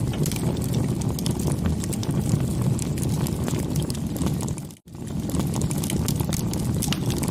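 Wood bonfire burning: a steady low rumble of the flames with dense, irregular crackles and pops. The sound drops out abruptly for a moment just under five seconds in, then resumes.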